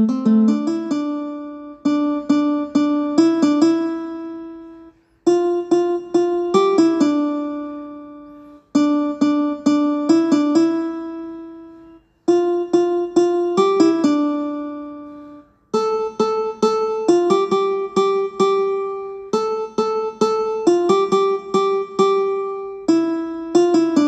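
A phone ringtone melody: short phrases of quick struck notes, each ending on a note that dies away, repeating about every three and a half seconds.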